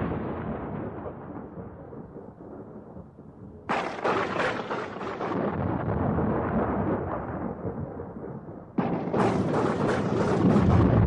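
Thunder claps: two sudden cracks, about four and nine seconds in, each followed by a long rumble that fades away.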